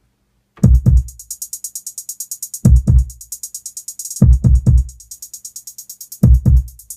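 Programmed hip hop drum pattern played back from a Maschine groove box: deep kick drums hitting in quick pairs and triplets about every two seconds over rapid, steady hi-hats, starting just under a second in.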